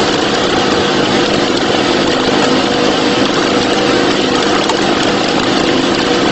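Fishing boat's engine running steadily, a constant drone under a loud, even rushing noise.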